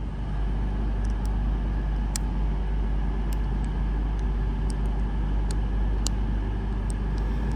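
Class 220 Voyager diesel multiple unit's engines running with a steady deep hum, with sharp clicks now and then.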